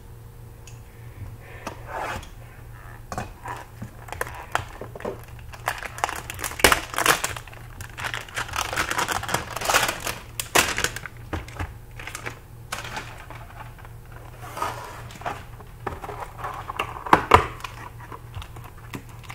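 Plastic and foil trading-card packaging being slit with a razor blade and torn open, crinkling and crackling in irregular bursts with scattered sharp clicks, busiest in the middle and again near the end.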